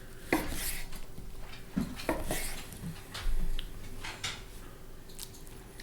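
Knife and fork clinking and scraping on a plate as a steak is cut, in scattered short taps and scrapes.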